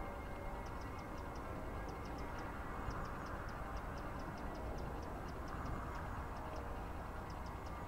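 Steady rush of flowing river water, with quick runs of faint, high-pitched ticks coming and going over it.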